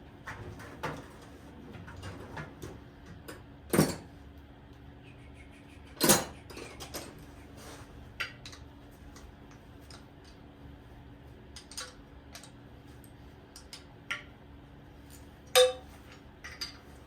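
Metal hand tools clinking and clanking against a Chevy 305 V8 engine as its intake manifold is unbolted, with scattered light clicks and three sharper clanks.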